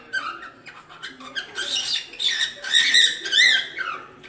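Cockatiel singing: a quick run of chirps and warbled whistles that grows louder and denser about halfway through, with a fast rising-and-falling note near the end.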